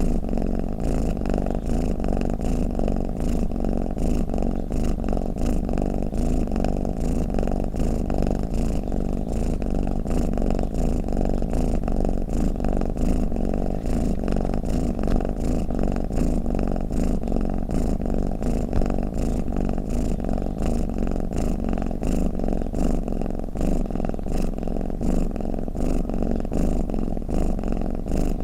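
Domestic cat purring steadily and continuously, a low, even, rapidly pulsing rumble.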